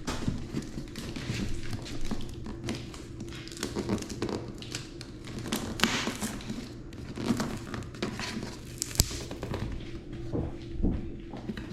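Cardboard chair box being handled: scattered knocks, taps and cardboard rustling, with one sharp click about nine seconds in, over a steady low hum.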